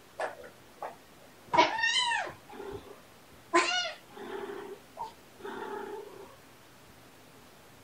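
A cat squawking in protest at a kitten's persistent play-pouncing: a short call, then two loud cries that rise and fall about 1.5 and 3.5 seconds in, followed by two lower, longer complaining calls that stop about 6 seconds in.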